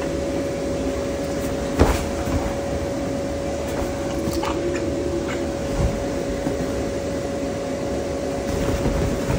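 Electric blower of an inflatable bounce house running steadily with a constant hum. A single thump comes a little under two seconds in.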